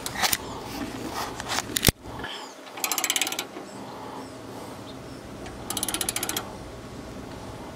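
Hand ratchet wrench clicking in two short, quick bursts as its handle is swung back on a bolt in the engine bay, with one sharp metallic knock shortly before the first burst.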